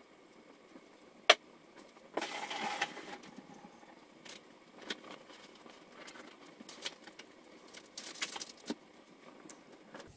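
Diced chicken cooking in its own juices in a stainless steel pot, with scattered sharp pops and two brief stretches of hiss, about two seconds in and again around eight seconds. The juices are simmering off while the chicken browns.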